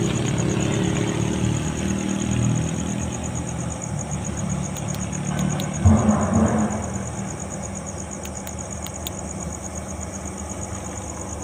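Steady low machine hum, like a distant engine running, under the rapid, even chirping of insects. A single thump comes about six seconds in.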